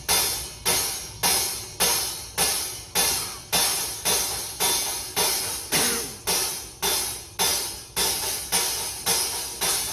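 A drum-kit cymbal struck alone at a steady pace, about one and a half hits a second, each hit ringing out briefly before the next, as its microphone is checked channel by channel during a sound check.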